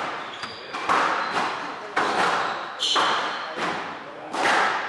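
Squash ball struck by rackets and smacking off the court walls during a rally, a sharp impact about every second, each ringing briefly in the enclosed court.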